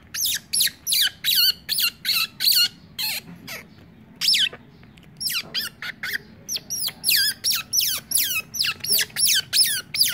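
Baby otter pup squeaking over and over: shrill calls that each drop in pitch, two or three a second, with a short lull a little before halfway.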